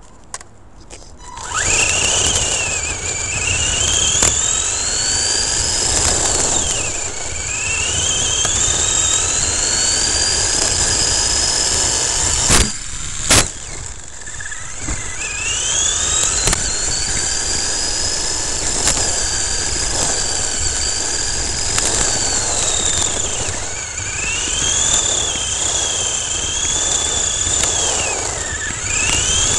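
Electric RC short-course truck's motor and drivetrain whining, the pitch rising and falling again and again with the throttle, over tyre noise on gravel. Two sharp knocks come about halfway through.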